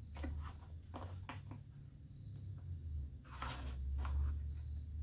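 Wood chisel paring a small wooden bow tie key by hand: a series of short scraping strokes, then a longer scrape a little past three seconds in.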